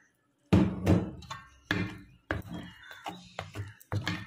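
Steel spoon stirring wet flour-and-milk batter in a metal bowl, starting about half a second in with a loud knock and then striking the bowl again every half second or so, each knock ringing briefly.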